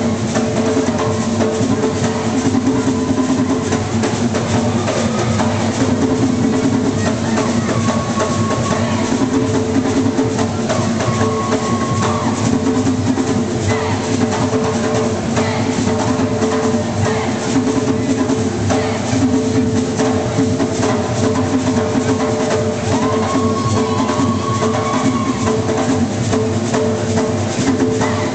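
Live barrel hand drums with skin heads playing a dense, steady rhythm, with voices singing over them.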